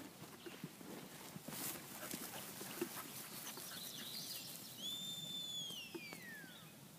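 A shepherd's whistle command to a working sheepdog, about five seconds in: one held high note that then slides steeply down. Soft knocks and rustling run underneath.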